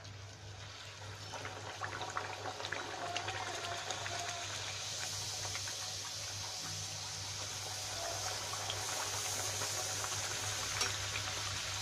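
Spinach puris deep-frying in hot oil in a kadhai: the oil sizzles, building over the first few seconds and then running steadily, with a few light clicks. The oil is hot enough for frying.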